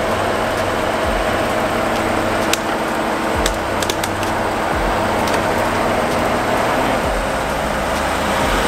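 Jeep Wrangler Rubicon's engine running steadily at low speed as it crawls over a muddy, rutted trail, with a few brief sharp clicks.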